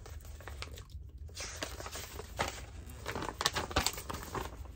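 Rustling and crinkling from things being handled close to the microphone, growing busier about a second in, with a quick run of small clicks and scrapes in the second half.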